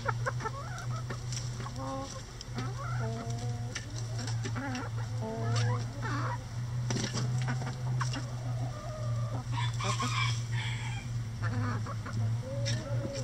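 A flock of backyard hens clucking and chattering in short, scattered calls as they crowd and peck at a hanging cabbage, with a few sharp taps among the calls. A steady low hum runs underneath.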